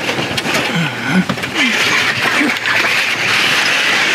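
Pleated cab blackout blinds being pulled closed, sliding along their tracks with a long steady hiss in two pulls and a short break about a second in.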